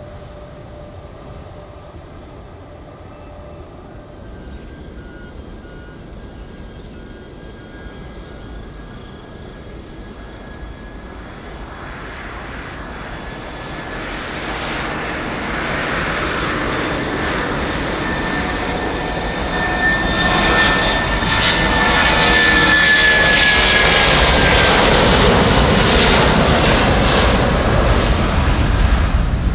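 Boeing 757-200F freighter's twin jet engines at takeoff power, building up steadily as it rolls down the runway. A high steady whine runs over the jet noise. It is faint at first and loudest over the last ten seconds or so, as the aircraft rotates and lifts off.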